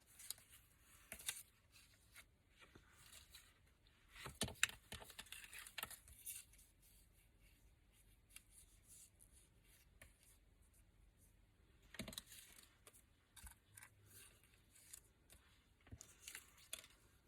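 Scissors snipping paper and card, with the paper handled between cuts. The sounds are quiet and come in short clusters: the busiest about four seconds in, another around twelve seconds, and more near the end.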